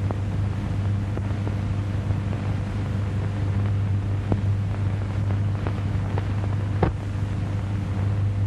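Steady low hum and hiss of a 1930s film soundtrack, with a few scattered clicks, the loudest about seven seconds in.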